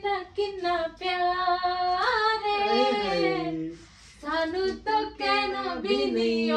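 A woman's voice singing without accompaniment, holding long notes that slide up and down in pitch, with a short break about four seconds in.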